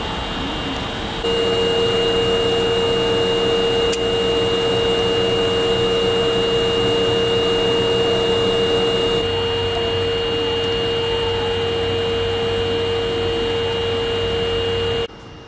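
Stopped subway train humming steadily at the platform: a constant mid-pitched tone with a fainter high whine over a wash of noise. The level jumps abruptly a few times.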